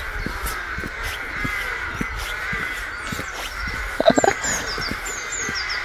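Many crows cawing at once in a continuous clamour. One louder, nearer caw comes about four seconds in, and a few short, high, falling chirps from a small bird come near the end.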